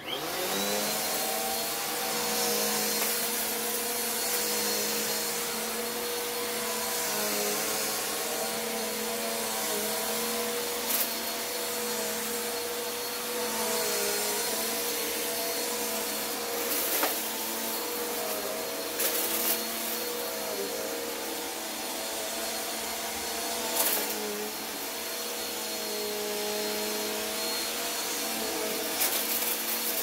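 Corded upright vacuum cleaner switched on and running steadily on carpet, with a high whine over its motor tone. A few sharp clicks sound through the run.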